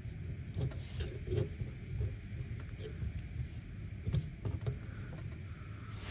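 Scattered light clicks and taps of a plastic action figure being handled and posed, over a low steady hum.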